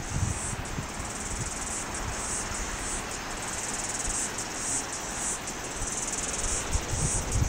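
A steady, high-pitched chorus of cicadas buzzing in the trees, with irregular low rumbles of wind and handling on the camcorder microphone.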